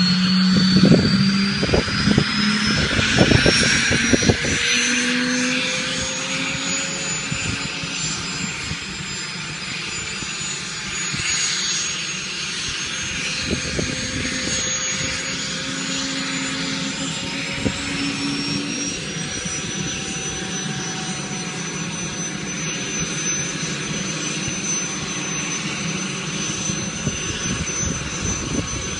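Aérospatiale Gazelle helicopter's Astazou turboshaft running with the rotor turning. Its high turbine whine rises steadily over the first several seconds, then holds steady under a broad rotor-and-engine hum. Wind buffets the microphone in the first few seconds.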